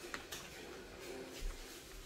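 Metal spoon working through rice in a plastic bowl: a few faint clicks and scrapes.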